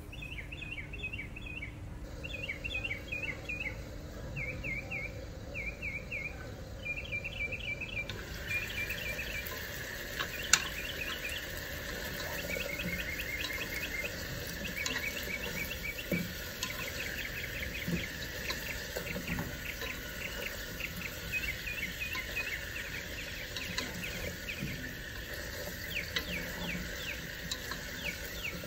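Rapid high-pitched chirping in short groups, repeating about once a second like a cricket, over a faint steady hiss.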